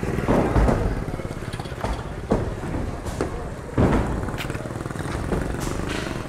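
Low, steady engine rumble under a run of about ten irregular knocks and thuds, the sound of demolition work on concrete houses.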